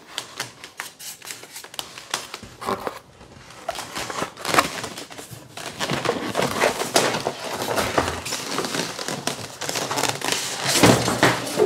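Polystyrene foam packaging and cardboard rubbing, creaking and scraping as a boxed pump is worked up and out of its carton: a run of irregular crackles and scrapes, loudest near the end.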